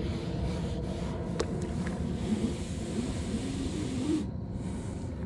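Steady low rumble of wind on the microphone, with a few faint clicks about a second and a half in.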